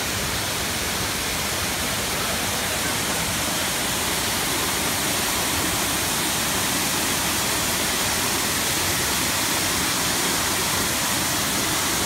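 Waterfall close by: a steady, even rush of falling water.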